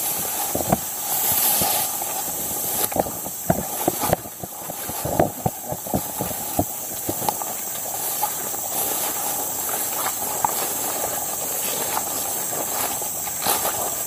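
Footsteps and rustling of a person walking through tall grass and brush, busiest in the first half, over a steady high-pitched hiss.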